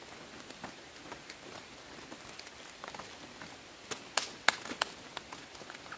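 Rustling and crackling of leaves and plant stems being handled, with a few sharp snaps about four seconds in.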